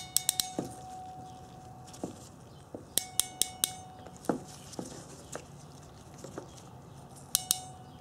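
Ancor 702010 ratcheting crimper clicking as its handles are squeezed down on a heat-shrink crimp connector. The clicks come in three quick runs, at the start, about three seconds in and near the end, each leaving a faint ring, with a few single clicks between.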